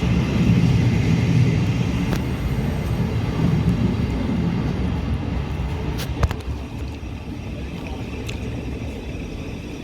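Low rumble of a train running, fading gradually, with a sharp click about six seconds in.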